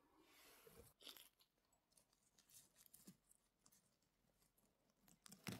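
Near silence with a few faint crunches and rustles, and a slightly louder crunch near the end.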